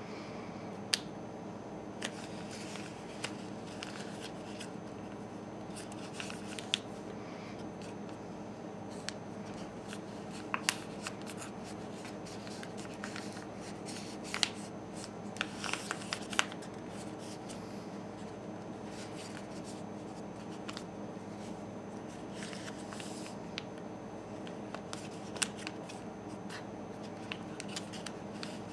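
A sheet of paper being folded and creased by hand into an origami boat: scattered crackles and rustles as the folds are pressed, busiest a little past the middle, over a steady low hum.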